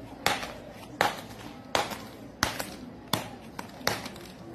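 Claw hammer smashing mobile phones on a concrete floor: six sharp blows at an even pace, about one every three-quarters of a second.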